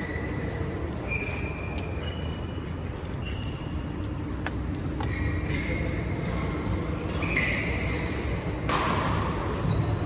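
Badminton rally in a large hall: shoes squeaking on the court mat and racket hits on the shuttlecock, with one louder burst near the end, over a steady low hum.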